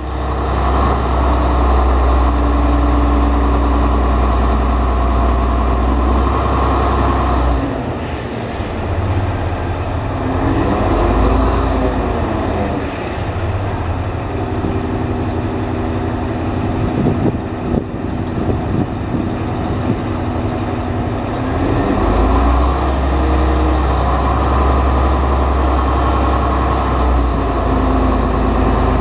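Old diesel locomotive engine revved hard as it moves off at the head of a train of tank wagons: a loud low drone at full power for the first several seconds, easing back through the middle, then opening up again about 22 seconds in.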